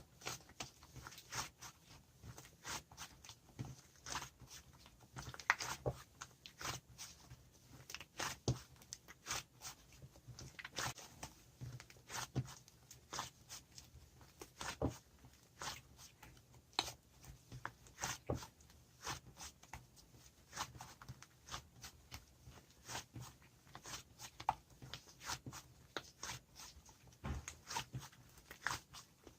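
White fluffy slime being squished and poked in a glass cup, giving an irregular stream of small crisp pops and clicks.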